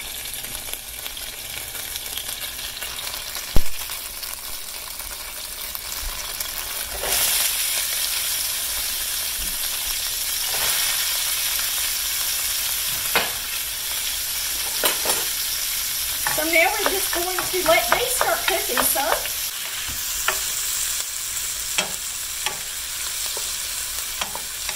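Chopped onion and green bell pepper sizzling in hot fat in a braiser; the sizzle gets louder about seven seconds in as the vegetables go into the pan. A single sharp knock comes a few seconds in, and later a wooden spoon scrapes and stirs the vegetables around the pan.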